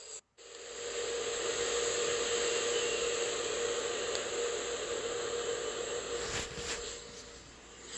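Steady hiss with a faint, even hum under it. The sound cuts out briefly just after the start, and there are a couple of soft knocks about six and a half seconds in.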